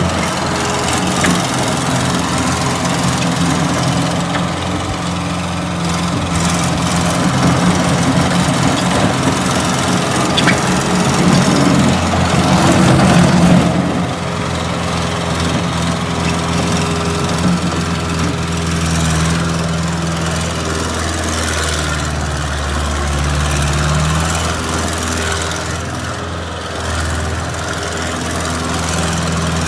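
Bobcat 763 skid steer's diesel engine running steadily. It grows louder and rougher for several seconds around the middle, then settles back to a steady run.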